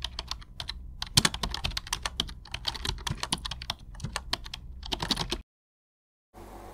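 Rapid, irregular clicking and tapping like fast typing, over a low steady hum; it cuts off abruptly about five and a half seconds in.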